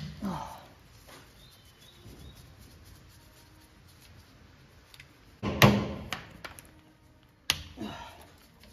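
Three sharp metal knocks of hand tools against the brake drum and hub of a GMC CCKW truck, each followed by a short ring. The first comes right at the start, the loudest about five and a half seconds in, and the last about seven and a half seconds in.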